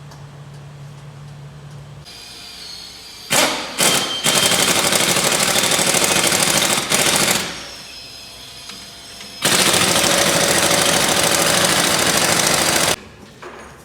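Impact wrench hammering in bursts while undoing the front strut's fasteners: two short blips about three seconds in, then a run of about three seconds and a second run of about three and a half seconds.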